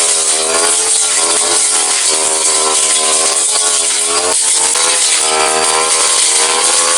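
Brush cutter engine running at high revs, its pitch wavering as the spinning blade cuts grass down to the ground, with a brief dip about four seconds in.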